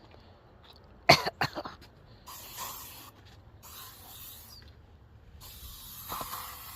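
Insect repellent spray hissing in about three short bursts as it is sprayed over a person. A quick cluster of sharp knocks about a second in is the loudest sound.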